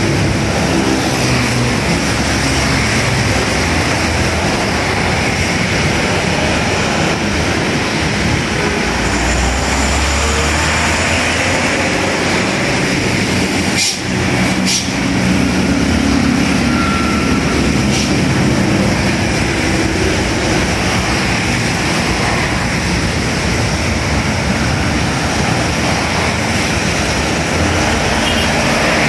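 Steady road traffic on a rain-soaked road: tyres hissing on wet asphalt, with the engines of passing motorcycles, cars, a minibus and a truck rising and falling as they go by.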